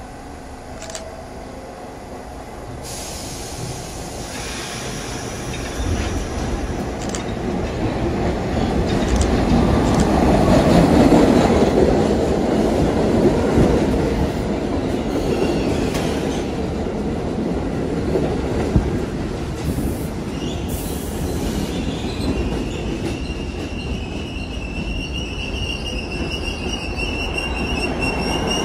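R68 New York City subway train pulling into the station: the sound of its wheels on the rails builds as it approaches and is loudest about ten seconds in, as the cars pass close. As it slows toward a stop, a high, steady wheel squeal sets in about twenty seconds in.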